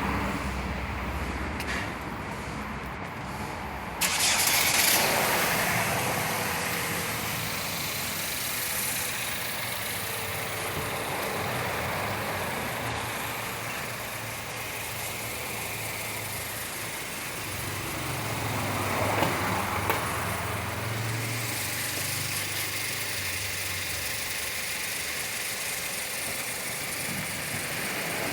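Chevrolet Captiva Sport engine running steadily, the noise the owner is showing. It turns suddenly louder and brighter about four seconds in.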